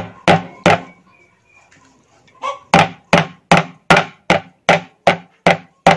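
Large kitchen knife chopping raw beef on a thick round wooden chopping board, mincing it by hand: three chops, a pause of about two seconds, then steady chopping at about two and a half chops a second.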